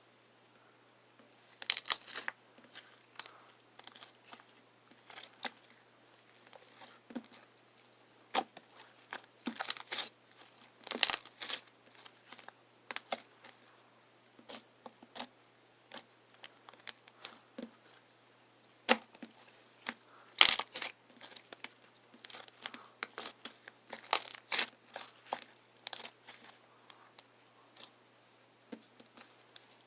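Slime being squeezed and stretched by hand, making irregular sticky clicks, pops and crackles, with a few louder snaps.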